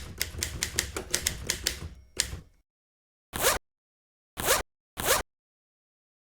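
Sound-effect clip of mechanical clacking: a fast run of sharp clacks, about six a second, for about two and a half seconds, then three single strikes spaced about a second apart.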